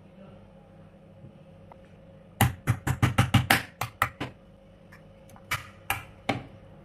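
Hard kluwek (Pangium edule) nut shells being struck on a plastic cutting board to crack them open. A quick run of about a dozen sharp knocks comes a couple of seconds in, then three more spaced knocks near the end.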